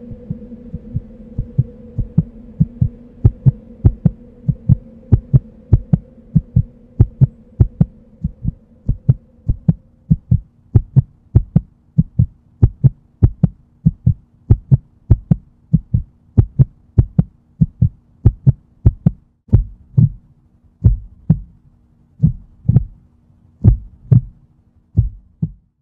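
Regular deep thumps, somewhat under two a second and heartbeat-like, over a low steady hum. They swell from faint to loud over the first few seconds, a higher held tone fades out about ten seconds in, and the thumps stop just before the end.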